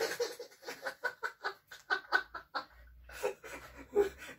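Laughter in a quick run of short "ha" pulses, about five a second, fading out after about two seconds into a few fainter breaths and chuckles.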